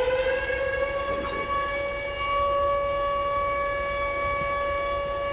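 A single long sustained tone with overtones, rising slightly in pitch at first and then holding steady, from the documentary's soundtrack playing back during editing.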